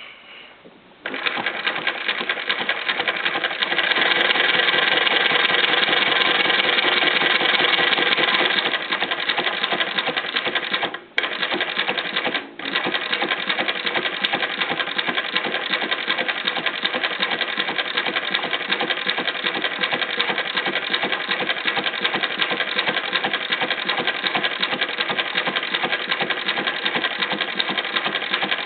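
Consew 225 compound-feed walking-foot sewing machine running at speed, a fast even clatter of stitching. It starts about a second in, runs loudest for several seconds, stops twice briefly near the middle, then runs steadily.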